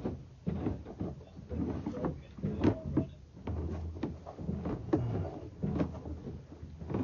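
Irregular hollow knocks and clunks, one or two a second, from the sewer inspection camera's push cable being worked through the drain pipe and its reel.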